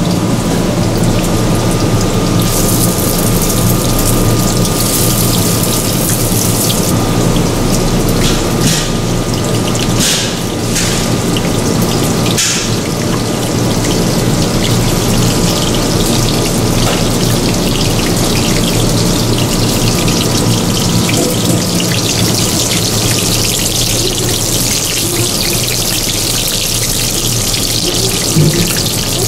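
Battered fish fillets pan-frying in hot oil: a steady sizzling hiss with fine crackle, over a steady low hum.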